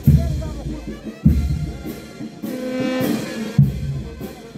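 Brass band playing a slow processional march: heavy bass drum strokes with cymbal crashes three times, and held brass chords between them.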